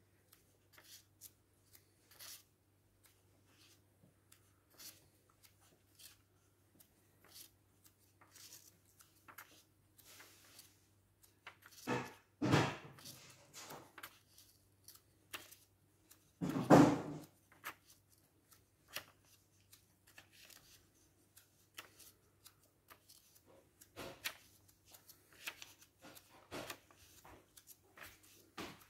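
Pages of a paperback puzzle book being turned and handled: short paper rustles and flicks throughout, with two louder rustles about twelve and seventeen seconds in. A faint steady low hum sits underneath.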